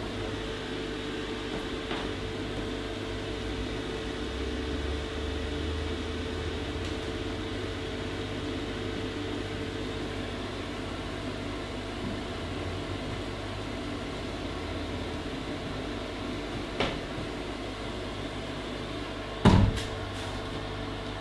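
Steady low mechanical hum with a faint steady tone in the first half, a small click about three-quarters through and a short knock near the end.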